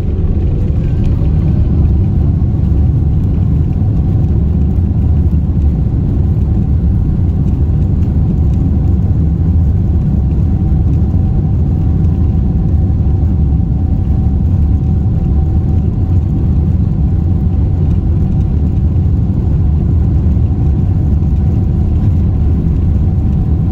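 Boeing 747-8i's four GEnx engines at takeoff power during the takeoff roll, heard inside the cabin: a deep, steady rumble with a thin steady whine above it.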